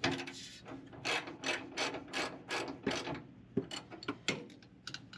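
Hand socket ratchet clicking in runs of quick, even clicks with short pauses, as a bolt is turned on the driveshaft's center support bracket.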